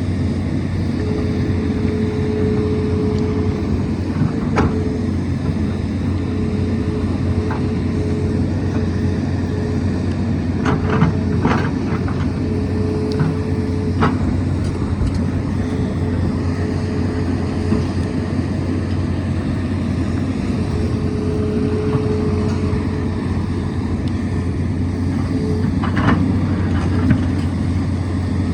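Tata Hitachi excavator's diesel engine running steadily under load, with a hydraulic whine that comes and goes as the boom and bucket move. A few sharp clanks of the bucket against rock, a cluster of them about halfway through and one more near the end.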